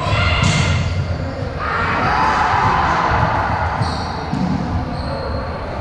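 Echoing gymnasium sounds during a volleyball game: repeated dull thuds of a ball and feet on the hardwood court, with short high sneaker squeaks about four seconds in, all ringing in the large hall.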